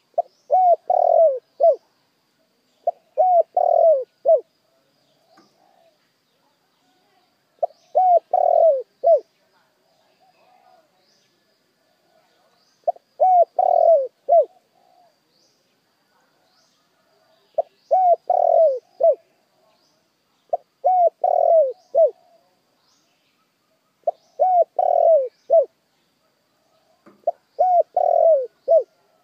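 Spotted dove (chim cu gáy) cooing: a decoy bird's call used to lure wild doves, repeating a phrase of several short coos about every three to four seconds. Faint high chirps sound between the phrases.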